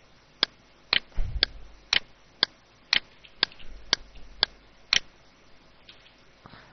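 Steady ticking: about ten short, sharp ticks evenly spaced twice a second, with a brief low thump about a second in.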